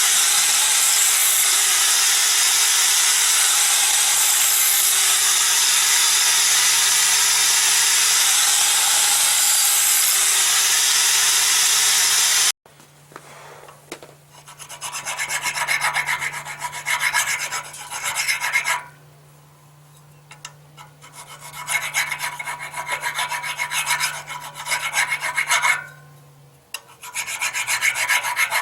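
A power grinder grinding the steel splitting wedge of an electric log splitter to sharpen its blunted edge: a steady, loud grinding hiss that stops abruptly about twelve seconds in. Then a hand file rasps along the wedge edge in runs of strokes with short pauses between.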